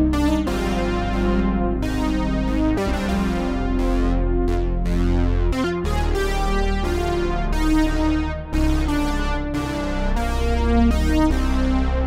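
Arturia PolyBrute six-voice analog synthesizer playing a GEOSynths preset: two-handed chords over a steady deep bass, each new chord starting bright, then mellowing as the upper tones fade.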